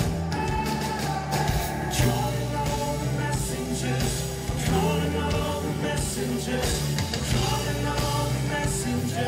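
Live band playing a Christian pop-rock song at full volume, with pounding drums, bass and a lead singer, heard from among the audience.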